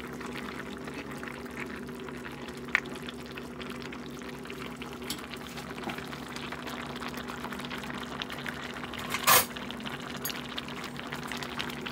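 Soy-and-vinegar adobo sauce with squid simmering in a wok: a steady fine crackle of bubbles over a low hum. There is a small click about three seconds in and a sharp knock, the loudest sound, about nine seconds in.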